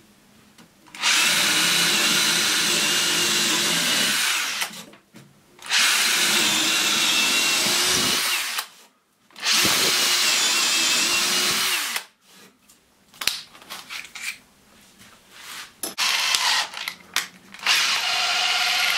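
Einhell TE-CD 18/50 Li-i BL cordless brushless drill boring into wood in three runs of about three seconds each. A stretch of scattered knocks follows, then a shorter run near the end.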